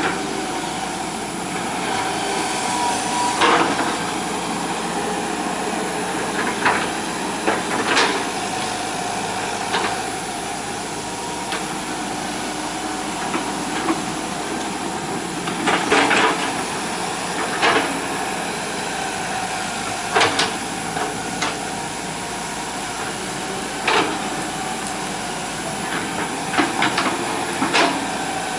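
Hitachi EX120 excavator's diesel engine running steadily under work, with sharp metallic clanks and knocks every few seconds as the machine digs and moves.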